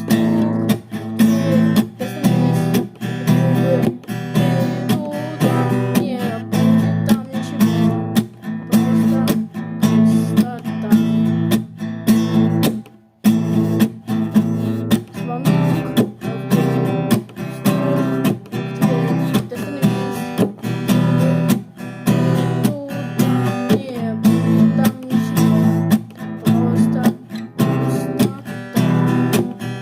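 Acoustic guitar music, strummed in a steady rhythm, with a brief break about halfway through.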